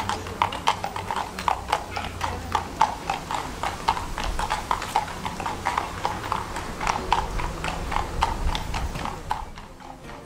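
Horse's hooves clip-clopping at a steady walk on an asphalt street as it draws a carriage past, about three to four hoofbeats a second over a low rumble. The hoofbeats fade near the end as the carriage moves away.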